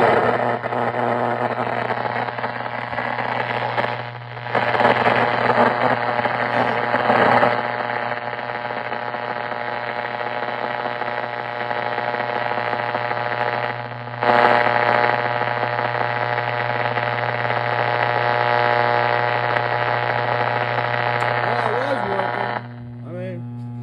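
1931 RCA Victor R7 tube superheterodyne radio on test, its speaker putting out a steady mains hum under static and faint, broken broadcast sound as it is tuned. The static cuts off near the end, leaving the hum. Reception is very finicky, which the owner traces to the tube shields left off after reassembly.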